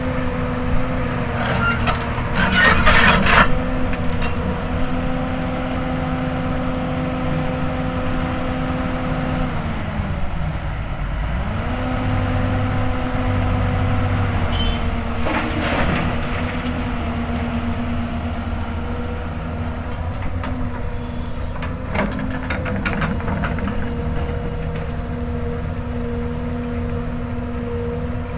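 Hyundai Robex 220-9S excavator's diesel engine running steadily under load while digging hard ground. Its pitch sags for about two seconds about a third of the way in and then comes back up. The bucket scrapes and clanks loudly about two to three seconds in, with a few shorter clanks later.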